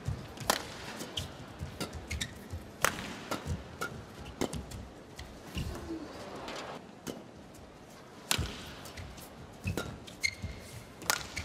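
Badminton rally: sharp strokes of rackets hitting a shuttlecock, spaced about a second apart, with short squeaks of shoes on the court floor. The hits stop for a few seconds in the middle before another rally starts.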